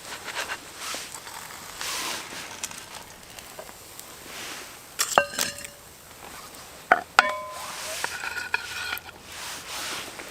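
Metal utensil clinking and scraping against a frying pan of chicken thighs and potato rösti cooking over a campfire, over a steady sizzle. There are sharp, briefly ringing clinks about five seconds in and again about seven seconds in.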